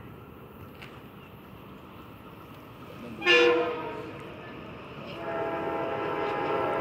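Metro-North M7 electric commuter train sounding a short, sharp horn blast about three seconds in, then coming in louder from about five seconds in, with a steady chord of tones over its running noise.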